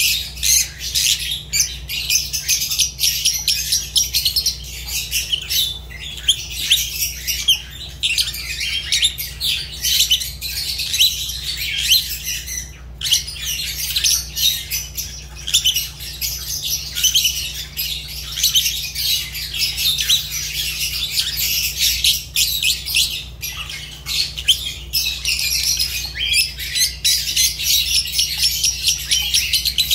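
Fischer's lovebirds chattering nonstop: a dense stream of rapid, high-pitched chirps and squawks.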